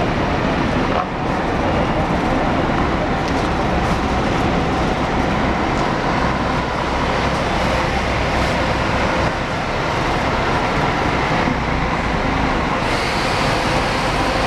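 Diesel engine of a Marcopolo Paradiso G7 1800DD double-decker coach on a Mercedes-Benz O-500RSD 2441 chassis, running as the bus pulls slowly past at low speed, a steady low drone. A brighter, hissier tone joins near the end as the rear of the bus comes level.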